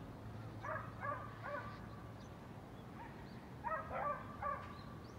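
Short animal calls outdoors, in two runs of three, one about a second in and one near four seconds, with faint high bird chirps near the end.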